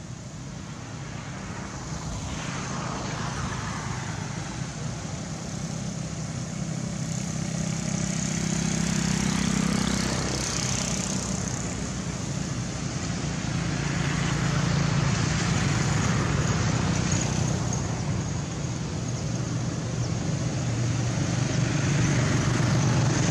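A motor engine running steadily with a low hum, gradually growing louder.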